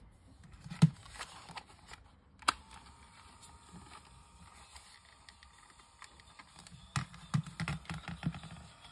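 Handling noise from an AIWA GS202 portable cassette player being picked up and put down on a wooden floor: scattered plastic clicks and knocks, with a loud knock just under a second in, a sharp click about two and a half seconds in, and a quick cluster of knocks near the end.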